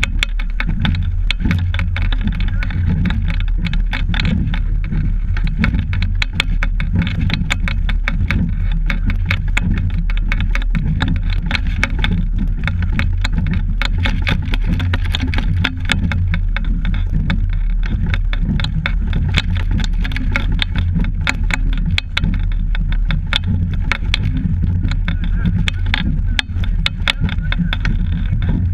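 Steady low rumble with dense crackling clicks from a camera riding on a rowing double scull under way: wind and water noise with rattling of the boat and mount.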